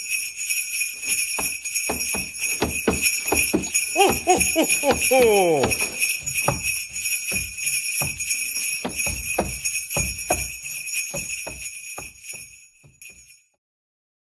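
Sleigh bells jingling steadily over a run of irregular knocks. Between about 4 and 6 s a voice calls out several times, each call falling in pitch. The jingling fades out shortly before the end.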